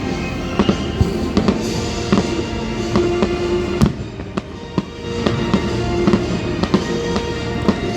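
Fireworks display bursting in quick succession, with sharp bangs and crackles, over music with sustained tones; a louder bang about four seconds in.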